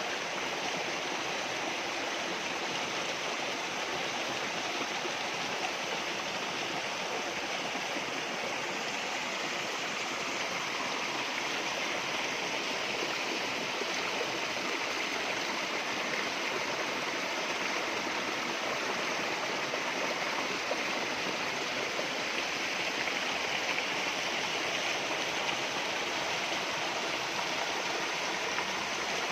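Waterfall water rushing and splashing in a steady, unbroken stream of sound.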